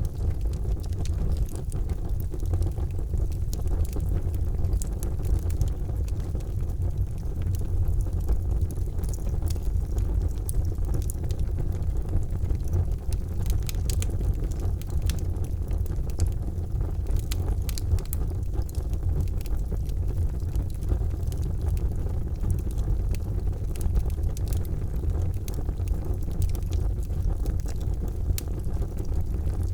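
Charcoal fire burning with a steady low rumble and frequent small crackles and pops scattered throughout.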